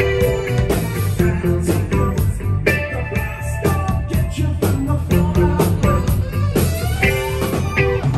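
Live band music: a pop-rock song played with guitar and other sustained pitched notes over a steady drum beat.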